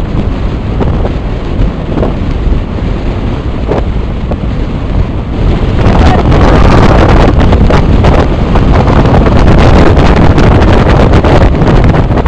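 Heavy wind buffeting the microphone at downhill skateboarding speed, with a constant low rumble. About six seconds in it gets louder and harsher, full of crackles.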